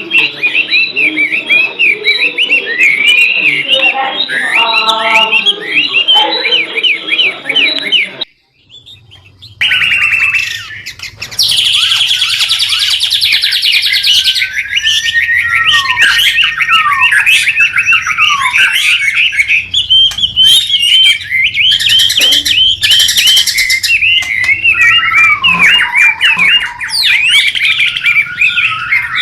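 White-rumped shama (murai batu) singing without pause: rapid, varied chirps, whistles and sweeping notes, with a couple of harsh buzzing phrases. The song breaks off for about a second roughly eight seconds in, then resumes.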